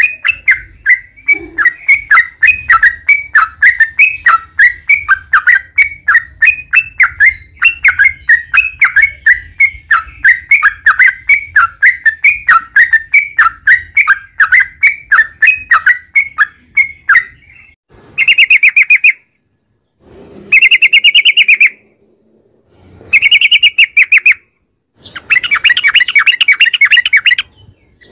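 Yellow-vented bulbul (trucukan) singing: a long run of quick repeated notes, about three a second, then four short rapid chattering trills with brief pauses between them.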